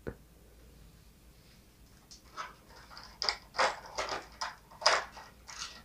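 Thin clear plastic packaging tray being handled, crinkling with a series of short, irregular clicks and crackles that start about two seconds in.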